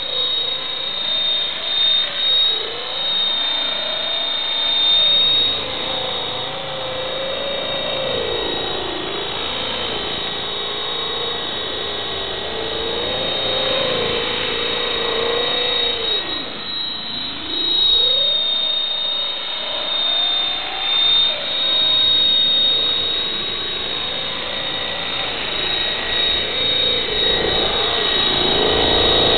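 EXI 450 electric RC helicopter flying: the main rotor's buzz rises and falls in pitch as it manoeuvres, over a thin, steady high motor whine. Near the end it comes down low over the ground.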